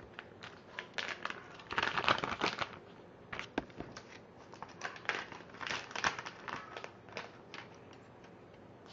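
Plastic bags crinkling and rustling in irregular bursts as they are handled, loudest about two seconds in and again around six seconds in.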